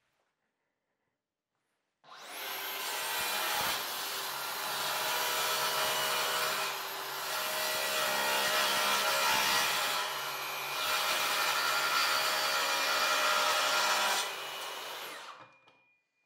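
DeWalt plunge-cut track saw starting up about two seconds in and cutting along the edge of a wooden board on its guide rail, a steady loud run with a high motor whine and two brief dips in level. Near the end the cut finishes and the blade spins down.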